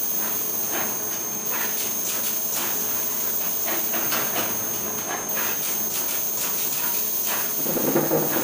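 Steady hiss with a constant high whine, overlaid with scattered light clicks and taps as parts of a flatbed screen-printing machine are adjusted by hand. A louder, duller rub or knock comes near the end.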